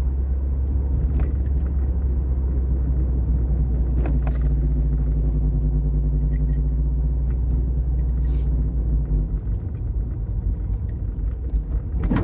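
Mazda MX-5's four-cylinder engine and road noise heard from inside the cabin while driving. The engine note holds steady for most of the time, then eases and turns rougher about three-quarters of the way in. A couple of light clicks or rattles come through.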